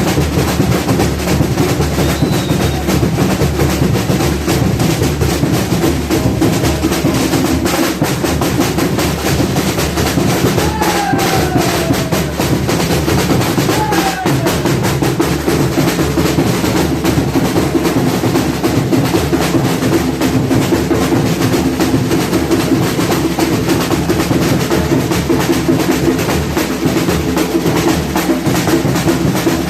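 Brazilian batucada drum ensemble (samba bateria) playing a steady, dense groove of deep bass drums and rattling snares. A couple of short sliding pitched calls come over it about eleven and fourteen seconds in.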